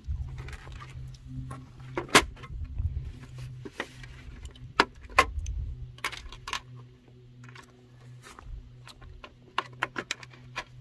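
Irregular clicks, taps and light rattles of hands working on an RC monster truck's plastic body shell, pushing its body pins back in. A few sharper knocks come about two and five seconds in, and a quick run of clicks near the end.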